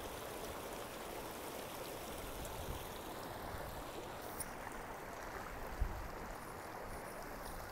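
A small alpine stream running over rocks, a steady rush of flowing water.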